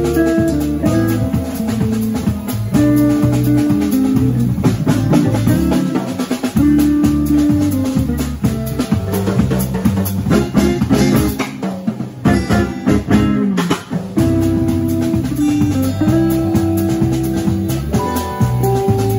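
Live instrumental Latin jazz from a small band: drum kit, electric bass, electric guitar and electric keyboard playing together at a steady groove, with a brief thinner passage about two-thirds of the way through.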